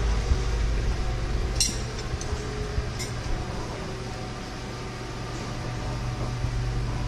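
A steady low hum, with a few light clinks about a second and a half and three seconds in.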